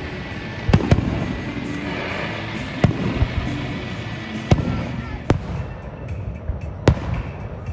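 Aerial firework shells bursting overhead: about six sharp bangs, the first two close together about a second in, then one every second or two.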